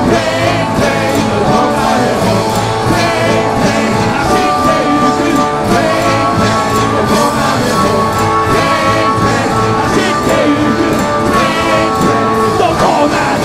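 Live rock band: a man singing into a handheld microphone over electric guitars, keyboard and drums, with one long held note through the middle.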